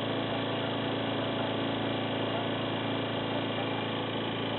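An engine or motor running steadily: an even hum that holds one pitch, with no revving or change.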